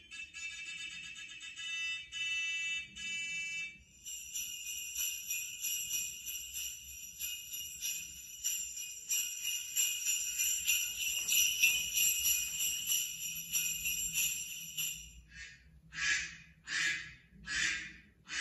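Bells jingling: short rhythmic shakes at first, then a continuous jingling for about eleven seconds, then a few separate shakes near the end.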